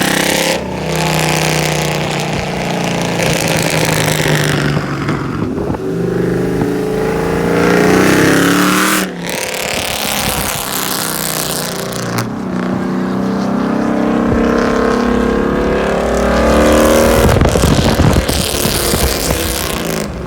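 Dodge Charger/Challenger Hemi V8, straight-piped with long tube headers, revving loudly. Its pitch climbs and drops several times, with sharp breaks between pulls.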